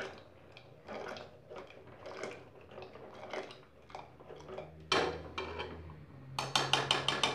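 A wooden hand churner (mathani) twirled between the palms inside an aluminium pressure cooker makes soft, repeated swishing and squelching strokes as it mashes boiled colocasia leaves and lentils into a paste. About five seconds in there is a sharper knock, and near the end a quick run of clicks as the wood rattles against the pot.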